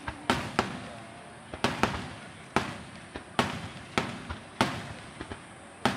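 Aerial firework shells bursting in quick succession: a string of sharp booms, about one or two a second at uneven spacing, each trailing off in an echo.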